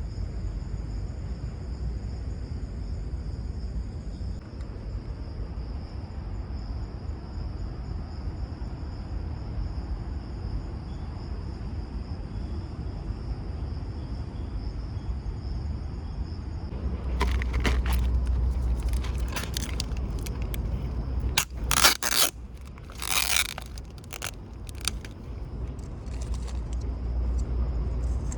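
Camping gear being handled: a run of scrapes and clinks starting a little past halfway, loudest for a moment near the end. Steady insect chirring and a low wind rumble sit underneath.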